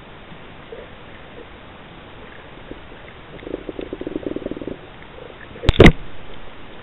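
Underwater recording: a steady hiss of the sea, with a buzzing rattle of rapid pulses for about a second midway and two sharp knocks in quick succession near the end.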